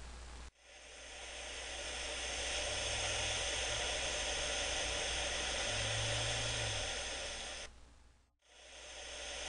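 Ocean surf washing on a beach: a steady hissing wash of breaking waves. It fades in, cuts out briefly about eight seconds in, then fades back in.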